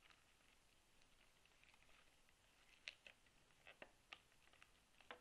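Faint crinkling and small crackles of a foil trading-card pack wrapper being worked open by hand, with a few sharper crackles from about three seconds in.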